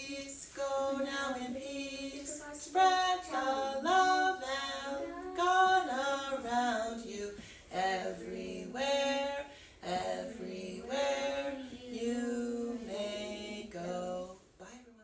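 A woman singing unaccompanied, in a series of held, sliding notes, which breaks off suddenly at the end.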